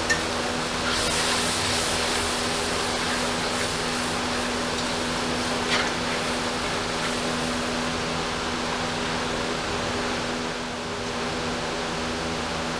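A metal spatula stirs ground spices into a simmering oily gravy in a steel karai, scraping the pan. There is a sharp clink at the start and another about six seconds in, over a steady hiss and low hum.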